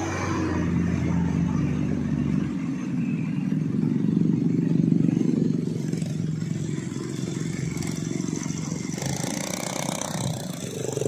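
Mitsubishi Fuso truck's diesel engine running as the truck pulls away under a load of sugarcane, loudest a few seconds in. Small motorcycle engines rise in pitch as they ride close past near the end.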